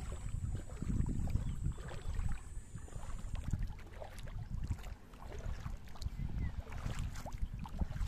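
Wind buffeting the microphone on an open shoreline, an uneven, gusting low rumble.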